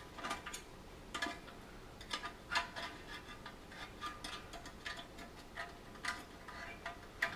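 Irregular light metallic clicks and clinks as the dryer's heating element and its sheet-metal housing are handled and fitted back into place.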